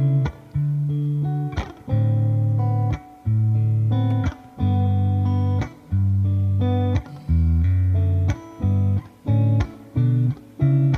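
Music with no vocals: plucked guitar over a bass line, in short held phrases broken by brief gaps about once a second.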